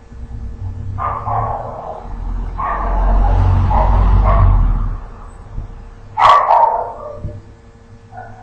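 A dog barking in three bursts, the middle one longer, with a low rumble under it.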